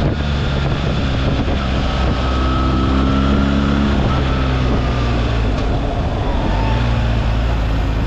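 BMW R 1300 GS boxer-twin engine running on the road as the motorcycle slows, its note falling gradually, with wind rushing over the microphone.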